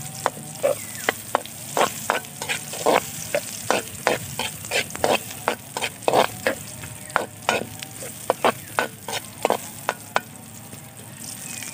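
Ingredients being sautéed in hot oil in a pan: a steady sizzle, with frequent sharp clicks and pops, several a second, as they are stirred.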